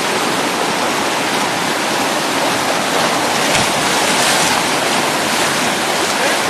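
Whitewater rapids rushing, a loud, steady wash of churning river water.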